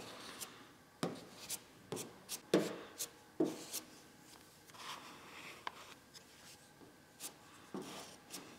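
Filler spreader scraping body filler onto a sanded car trunk lid: short, irregular scraping strokes with soft taps between them.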